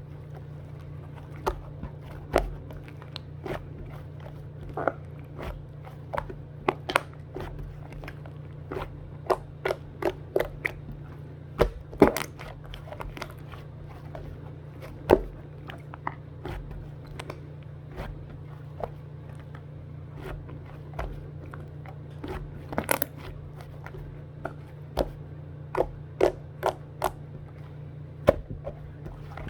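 Irregular sharp clicks and light knocks, a few of them much louder, over a steady low hum.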